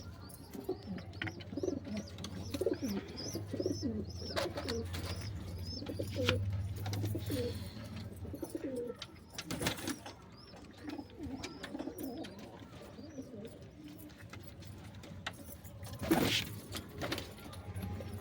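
Domestic pigeons cooing, many short overlapping low calls, with two brief bursts of noise, about halfway through and near the end.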